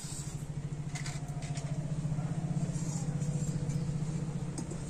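Fire catching and burning in a clay stove, a low, fast-fluttering rumble with a few faint crackles.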